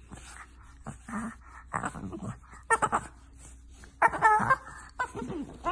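Bulldog lying on its back, vocalizing in a string of short calls that bend up and down in pitch, the loudest about three and four seconds in.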